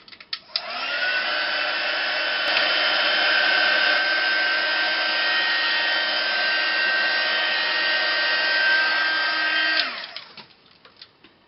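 Craft heat gun running: a steady blowing whir with a high whine, spinning up about half a second in and winding down near the end, as it melts ultra-thick embossing crystals.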